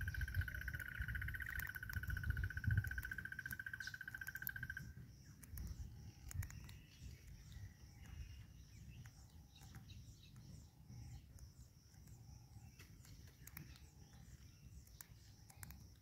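Faint outdoor ambience. A steady high trill stops about five seconds in, over a continuous shrill insect chorus. Scattered faint bird chirps and ticks and a low rumble run underneath.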